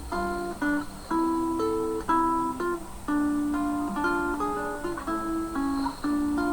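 Acoustic guitar music: a slow melody of plucked notes and chords, each struck about every half second to a second and left to ring.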